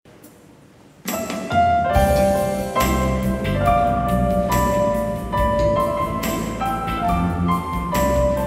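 Piano-led instrumental introduction to a choir anthem, beginning about a second in with struck notes over a low bass line and a steady beat.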